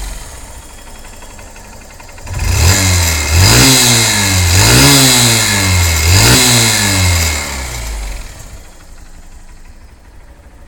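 Honda CBF125 single-cylinder four-stroke engine idling, then revved three times about two seconds in before dropping back to idle. The exhaust is leaking at the cylinder joint, where the single-use exhaust seal needs replacing.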